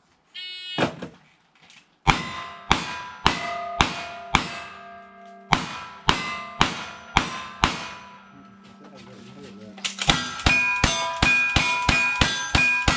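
A shot-timer beep, then cowboy action shooting: about ten revolver shots at roughly two a second, each answered by the ring of a struck steel plate target. After a short pause comes a faster string of rifle shots, about three a second, with the steel plates ringing after each hit.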